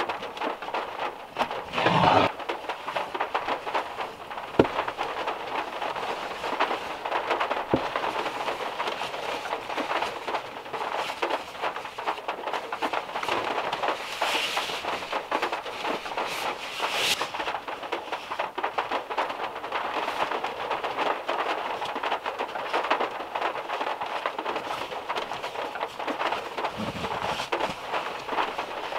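Steady rain pattering on a VW Beetle's metal roof, heard from inside the car. About two seconds in there is a knock from the plastic case being moved, and around the middle a nylon sleeping bag rustles as it is handled.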